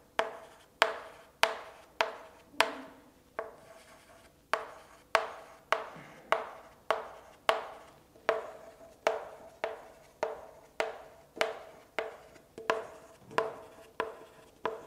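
Chalk tapping on a chalkboard as electron dots are marked one by one, a sharp tap roughly every half second to two-thirds of a second, each with a brief ring. The taps pause for about a second near the four-second mark, then carry on at the same pace.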